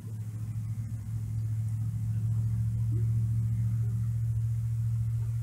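Low, steady rumble of a distant engine, swelling over the first two seconds and then holding.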